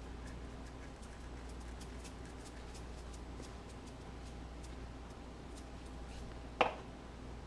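Salt and pepper sprinkled over raw fluke fillets on a paper towel: faint scattered ticks of falling grains over a low steady hum, with a single sharp knock near the end.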